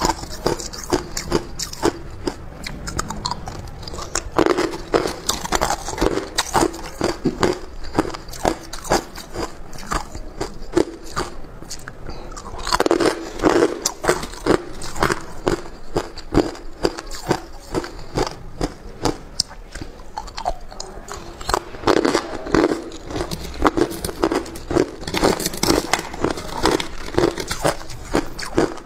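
Chunks of hard clear ice bitten and chewed, a long run of sharp cracks and crunches, close to the microphone, with louder flurries of crunching at several points.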